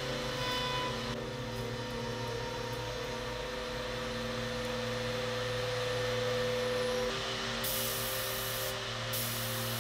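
Electric router running steadily as its bit cuts a long groove along a wooden panel. About seven seconds in the pitch shifts and a hissy cutting noise comes in.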